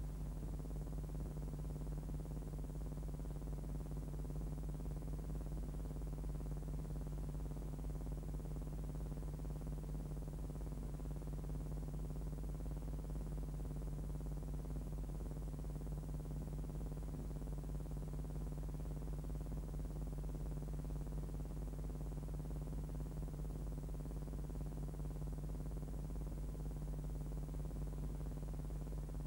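Steady low electrical hum with a faint hiss, unchanging throughout; no other sound.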